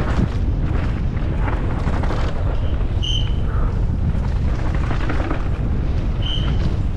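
Downhill mountain bike ridden fast down a forest dirt trail, heard from a camera on the rider or bike: a steady low rumble of wind buffeting the microphone and tyres on loose dirt, with rattling clicks from the bike over roots. Two short high squeaks come about three seconds in and again about six seconds in.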